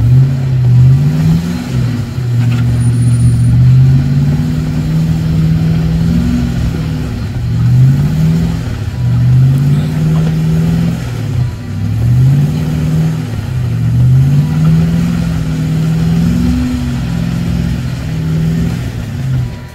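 Off-road 4x4's engine revving up and dropping back again and again, the pitch climbing in surges about every two seconds.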